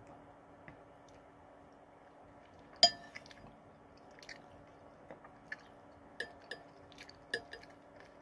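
Someone eating microwaved canned pasta: a spoon clinks sharply against the dish about three seconds in, followed by several lighter clinks and quiet chewing.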